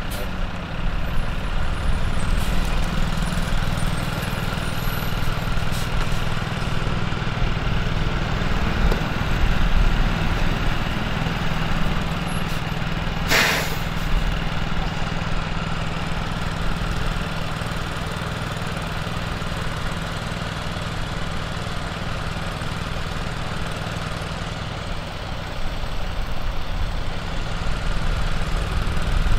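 Fire engines idling: a steady low engine hum, with a short hiss about thirteen seconds in.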